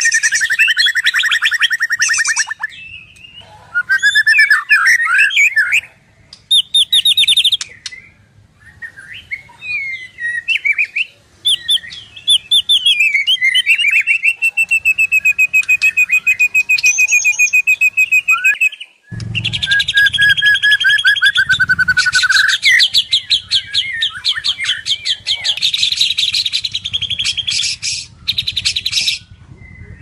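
White-rumped shama singing a loud, varied song of whistles, rapid trills and chattering notes. About halfway through it holds one long steady whistle. After a short break it goes into a dense run of fast repeated notes over a low rumble.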